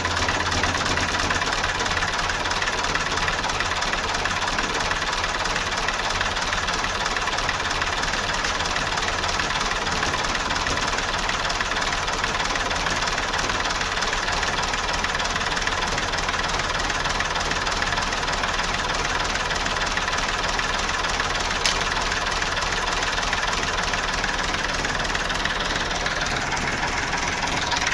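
Massey Ferguson 135's three-cylinder Perkins diesel engine running steadily at idle, cold, on a near-freezing day with no manifold heater used.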